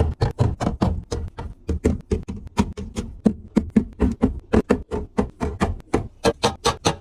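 A rapid, uneven series of taps, clicks and knocks, about five or six a second, some with a dull thud: items and containers being handled and set down while restocking a fridge.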